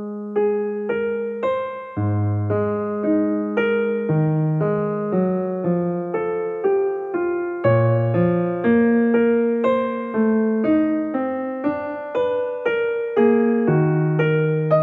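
Background piano music: a calm melody of struck notes over chords, several notes a second, each note fading after it is struck.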